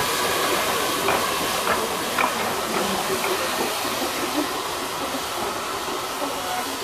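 South African Railways NG G16 Garratt steam locomotive No.143 moving slowly, with a steady hiss of escaping steam and a few light clicks about one to two seconds in.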